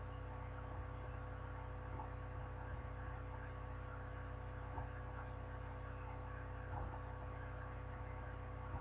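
Steady electrical mains hum with faint room hiss, and a couple of faint small knocks.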